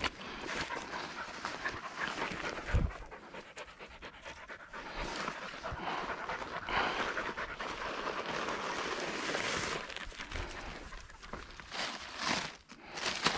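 Pointing dog panting hard close by, in quick in-and-out breaths. A short low thump about three seconds in.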